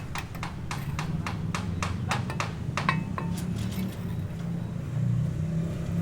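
Quick, irregular knocking, several sharp strikes a second, over a steady low hum. A brief metallic ring comes about three seconds in.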